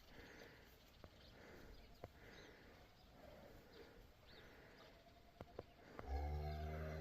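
Quiet farmyard background with faint bird chirps and a few small knocks, then about six seconds in a cow gives one low moo lasting over a second.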